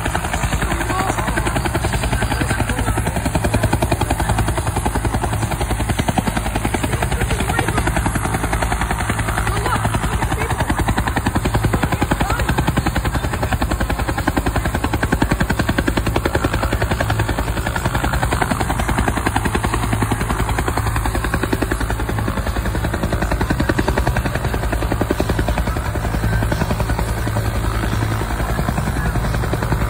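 Bell UH-1 'Huey'-type turbine helicopter running steadily on the ground, its main rotor beating a fast, even blade chop over the engine whine.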